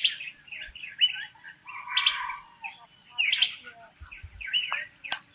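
Several forest birds chirping and calling in quick succession, the short chirps overlapping, with a sharp click near the end.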